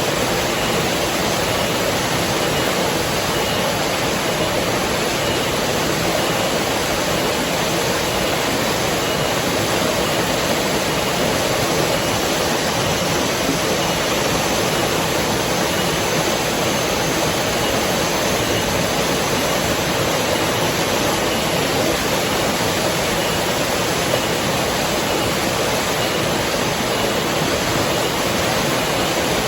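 River water flowing, a steady, even rush that doesn't let up.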